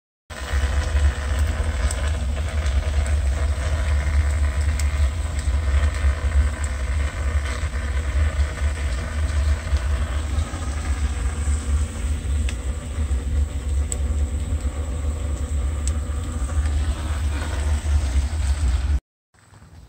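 Wood fire burning hard in a brick barbecue under a grill of calçots: a loud, steady low roar of flames with scattered crackles and pops. The sound cuts off suddenly near the end.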